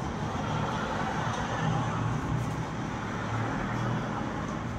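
Steady traffic rumble and urban background noise, with no distinct events standing out.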